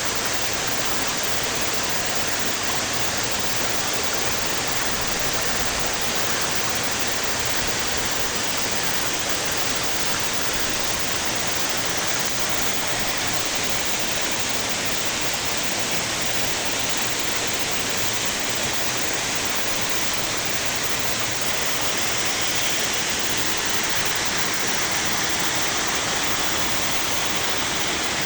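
Waterfall: falling water rushing in a steady, even hiss that does not let up.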